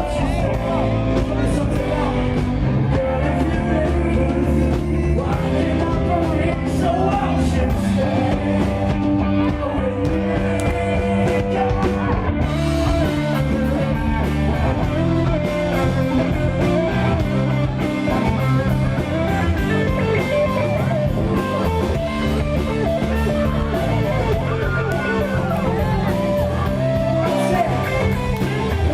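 Live rock band playing: electric guitar, bass and drums with singing. The music gets brighter and fuller about twelve seconds in.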